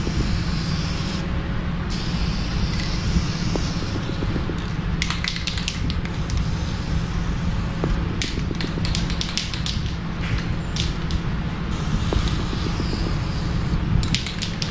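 Aerosol can of insulating varnish spraying onto an electric motor's stator windings: a hiss early on, then many short spurts, over a steady low hum.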